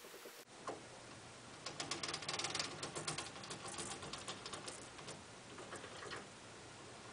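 Carriage of an Atlas 9-inch lathe being cranked along the bed by its apron handwheel, the gearing giving a rapid run of light metallic ticks and clicks, thickest from about two to five seconds in.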